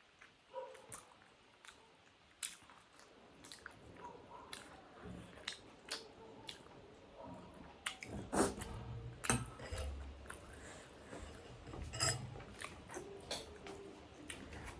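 Close-up chewing and mouth sounds of people eating chicken momos, with scattered short, sharp clicks that grow busier and louder in the second half.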